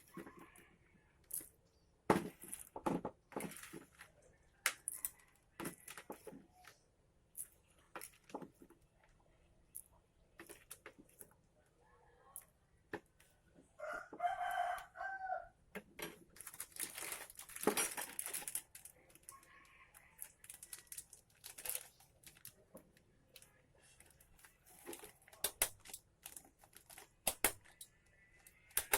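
A rooster crows once about halfway through, over scattered clicks and rustling.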